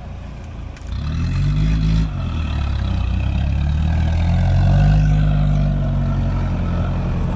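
An off-road 4x4's engine revving hard under load, picking up about a second in. The revs dip briefly, then build again and hold high before easing slightly near the end.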